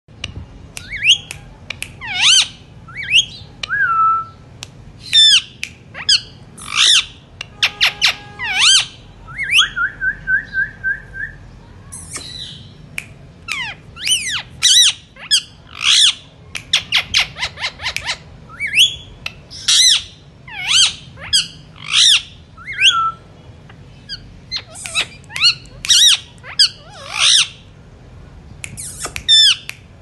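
Indian ringneck parakeets calling: loud, sharp squawks that sweep quickly up and down in pitch, repeated in clusters with short pauses, with a quick run of short even notes about ten seconds in.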